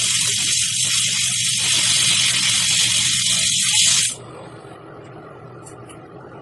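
Lincoln Precision TIG 225 welding arc on the cracked alloy wheel, mending a crack from the inner lip to the barrel: a loud steady hiss with crackling and a low hum. The arc cuts off suddenly about four seconds in, leaving only a quieter steady hum.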